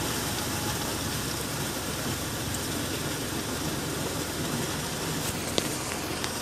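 Sonalika DI 47 RX tractor's diesel engine running steadily under load as it drags a leveling board through a flooded paddy field. A single short sharp click sounds near the end.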